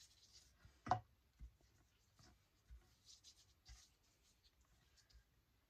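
Faint strokes of a small paintbrush brushing wet colour across a sheet of paper, soft and scratchy, coming in short passes. A single light tap about a second in is the loudest sound.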